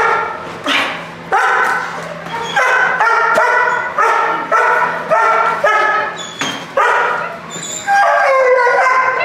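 Herder-cross puppy barking in a fast, steady run, about one and a half barks a second, while it is worked up and lunging at a bite pillow in bite training; a longer call comes near the end.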